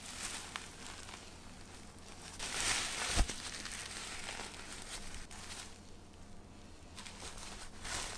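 Disposable pant-style diapers crinkling and rustling as they are handled and squeezed, swelling a couple of seconds in, with one sharp knock about three seconds in.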